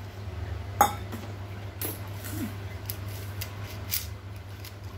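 Metal coins clinking against a steel plate as a child picks them up, a few separate sharp clinks, the loudest about a second in, over a steady low hum.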